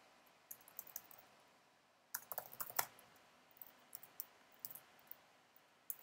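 Computer keyboard typing: short, scattered runs of key clicks, the busiest and loudest run about two to three seconds in.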